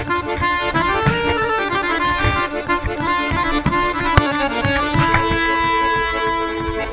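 Instrumental background music with a steady beat and long held melody notes.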